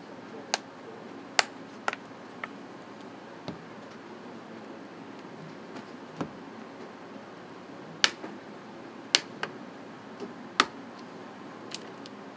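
Plastic clips of an Amazon Kindle tablet's back panel clicking as the panel is pried loose around its edge: about a dozen short, sharp clicks at uneven intervals, the strongest a little over a second in and between eight and eleven seconds in.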